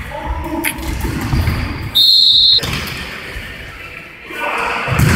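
Referee's whistle blown once, a single short high blast about two seconds in. Around it, the futsal ball thuds and players' feet move on the hall floor, with voices calling out near the start and end.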